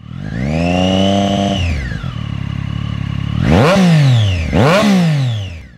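Motorcycle engine being revved. It rises and holds for about a second, drops back to a steady idle about two seconds in, then is blipped twice, each rev peaking quickly and falling away.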